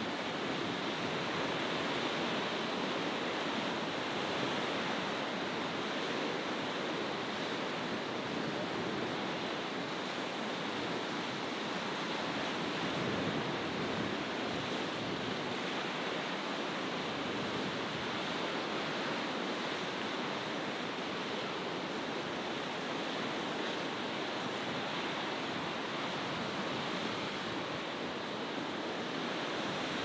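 Rough surf: a steady rush of breaking waves, with wind.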